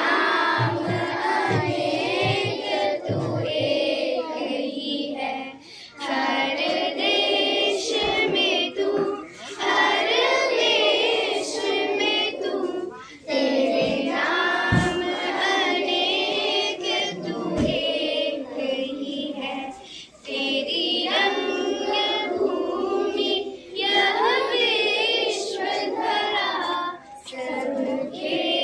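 A group of children singing a Hindi song together in unison, in phrases of a few seconds with short breaks between them. A few short low thumps sound under the singing.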